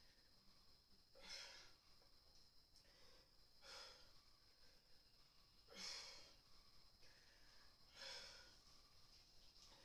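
A woman's heavy breathing during resistance-band bicep curls: four breaths, about one every two seconds, in time with the reps.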